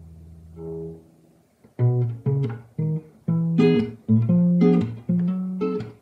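Acoustic guitar being fingerpicked: a held chord fades out, a soft note sounds about half a second in, and after a short pause a run of plucked chords and notes follows, about two a second, each ringing and decaying.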